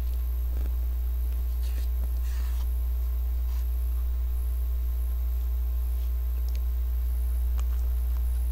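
A steady low hum, with a few faint clicks and short scrapes of a spoon digging into a tub of Together vanilla ice cream and quiet eating sounds.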